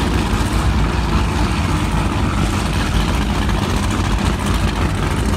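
Performance powerboat engines idling with a steady low rumble.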